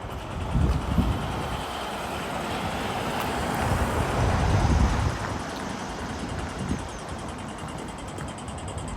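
A motor vehicle passing on the street, its tyre and engine noise swelling to a peak about four to five seconds in and then fading. Wind gusts buffet the phone's microphone with low rumbles.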